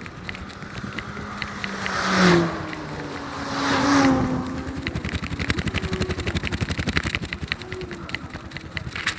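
Two road vehicles pass close by one after the other, about two and four seconds in. Each swells up and fades, its pitch falling as it goes by. Under them runs a steady rapid ticking clatter.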